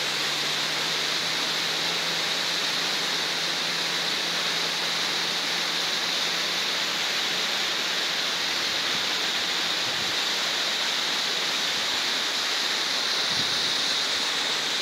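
Small mountain waterfall pouring down a rocky cliff face: a steady rush of falling and splashing water.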